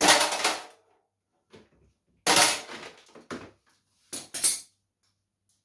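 Small scrap metal parts clattering as they are handled and dropped: three separate bursts of rattling clatter, the first right at the start, the second a little over two seconds in, the last a short one about four seconds in.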